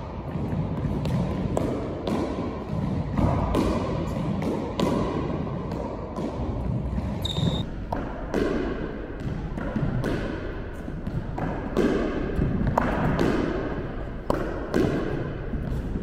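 Squash ball being hit with a racket and thudding off the court walls and floor in an irregular series of sharp knocks, with a brief high squeak about seven seconds in.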